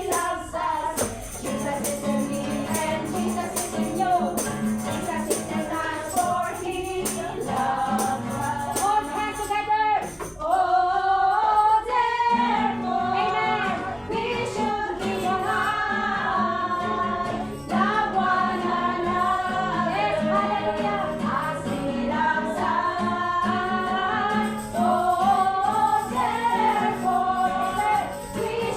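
A worship song with voices singing to a band accompaniment and a jingling tambourine. The tambourine is busiest in roughly the first ten seconds.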